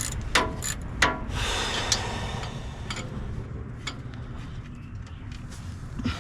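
Ratchet wrench clicking in a few separate strokes while the last starter mounting bolt is worked loose, with a short scraping rustle about a second and a half in.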